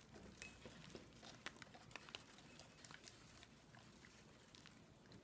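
Faint scattered ticks and crackles of potting soil being crumbled off a small plant's roots by hand, with crumbs dropping.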